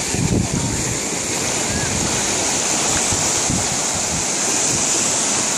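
Ocean surf washing and breaking in the shallows, a steady rushing of water.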